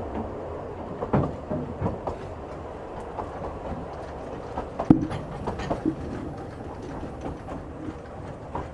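Narrow-gauge steam train under way, heard from on board: a steady rumble of the moving train with irregular clicks and knocks, the loudest a sharp knock about five seconds in.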